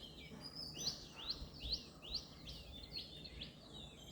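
A bird calling: a series of short, high notes, each sliding downward, repeated about two to three times a second over a low steady background.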